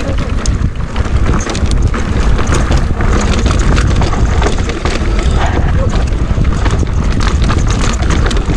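Wind buffeting an action camera's microphone on a fast mountain-bike descent, a loud steady low rumble, with the clatter and knocks of tyres and bike over a rocky dirt trail.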